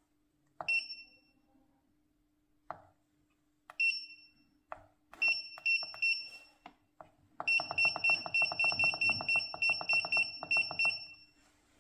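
Front-panel buttons of an 8586D rework station being pressed: each press is a small click, most with a short high beep. Near the middle a few quick beeps follow, then a fast run of beeps, about six a second, while the temperature setting is stepped.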